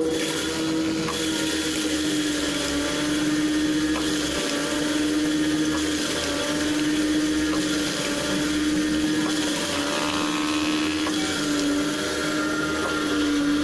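Electric household flour mill (atta chakki) running, with a steady motor hum over a grinding rush as it mills chana dal into besan.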